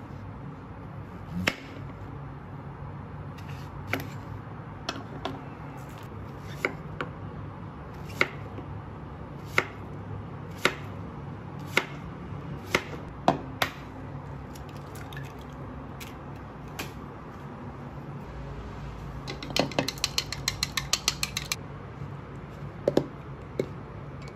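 Ceramic knife slicing a zucchini on a bamboo cutting board: a sharp knock each time the blade meets the board, about one a second, then a quick run of rapid clicks and a couple more knocks near the end, over a steady low hum.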